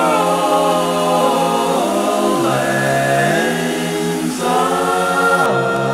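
Choir singing slow, sustained chords without instruments, moving to a new chord about two seconds in and again just past four seconds.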